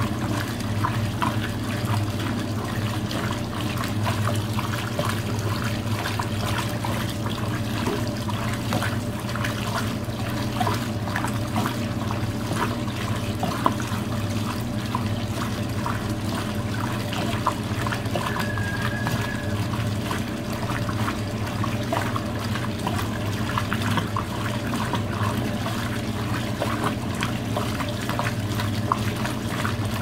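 Brastemp Luxo Linea Venezia 4 kg washing machine filling its tub: water steadily pouring and trickling in with small splashes, over a steady low hum.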